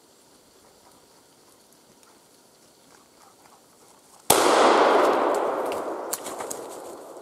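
A single gunshot about four seconds in: a sharp bang followed by a long echoing tail that fades away over about three seconds.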